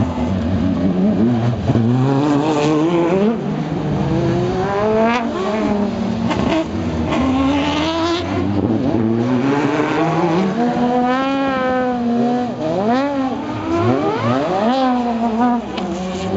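Super GT GT500 race cars, a Nissan GT-R and a Lexus SC430, drifting with their V8 engines revving up and down over and over and their tyres squealing.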